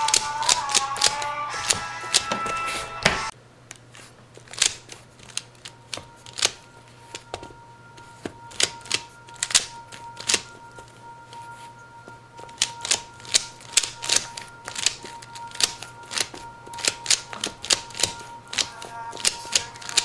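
Plastic 3x3 speedcube being turned with the feet, its layers clicking in irregular runs of quick clicks. Music plays for the first three seconds or so and then cuts off.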